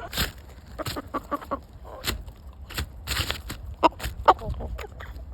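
Chickens clucking in short, scattered calls, mixed with several brief noisy rustles or knocks.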